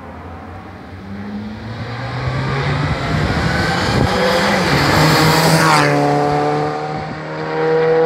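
Race car engine at full throttle on a hillclimb, getting louder as it comes up the road with its pitch climbing. About six seconds in the pitch drops abruptly, then holds steady.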